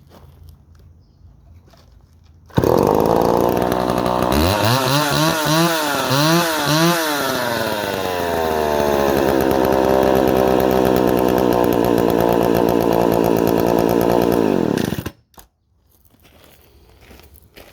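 Homelite 350 two-stroke chainsaw starting up with a sudden bang of sound, revved up and down three times, then held at high revs for several seconds before cutting off abruptly. The saw is running in working condition.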